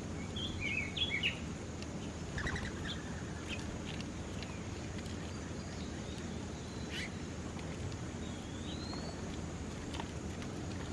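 Small birds chirping: a quick cluster of high chirps about a second in, a few more soon after, and a single curved whistle later on. A steady low outdoor rumble runs underneath.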